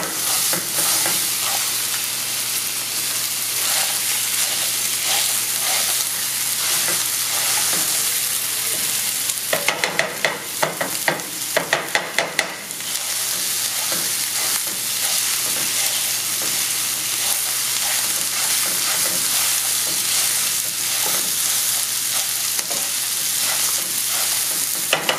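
Ground pork sausage sizzling as it browns in a nonstick skillet, stirred and broken up with a wooden spatula. About ten seconds in comes a quick run of sharp taps, roughly three or four a second for about three seconds, as the spatula chops through the meat against the pan; a few more come at the very end.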